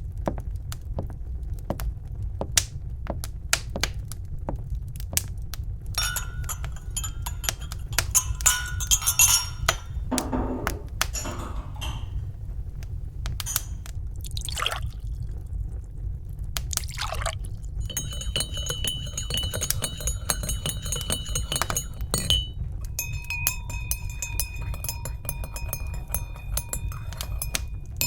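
Crackling fireplace fire with a steady low rumble, under the sounds of tea being made: liquid poured, and cups and china clinking and ringing.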